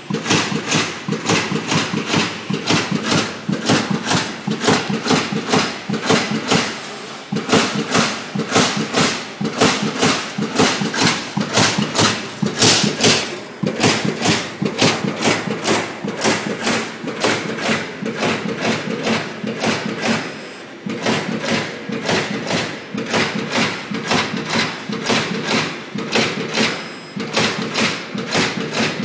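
Amada CNC turret punch press punching steel sheet, a fast run of sharp strokes at about three a second, broken by two short pauses.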